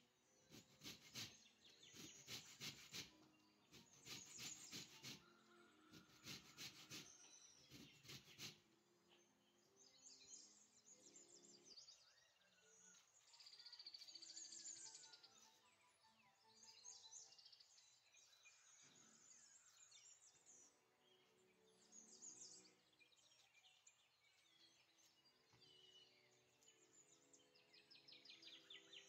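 Faint scraping strokes of an orange being grated on a metal box grater for the first eight seconds or so, then faint bird chirping over soft background music.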